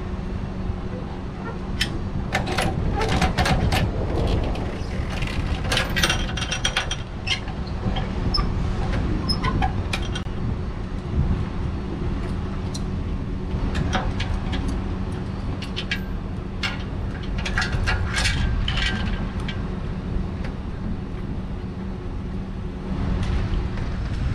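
Clusters of metal clicks and clinks from a boat trailer's bow winch and safety chain as the winch strap and chain are released from the boat's bow eye, over a steady low engine idle.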